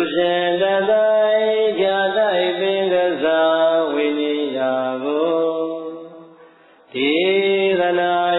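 Buddhist chanting: a voice intoning long, drawn-out notes. The first phrase fades out about six seconds in, and the next begins about a second later.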